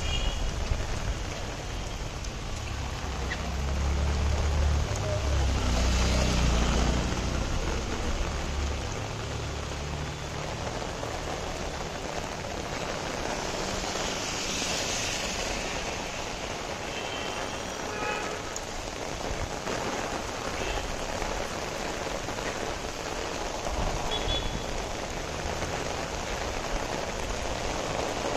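Heavy rain falling steadily on a street and pavement, an even hiss of rain. A low rumble swells in about four seconds in and fades out by about nine seconds.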